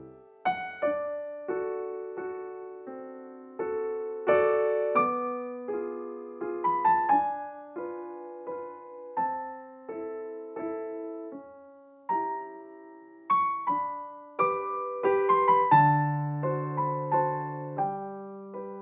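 Background music: a gentle solo piano melody with chords, notes struck and left to ring.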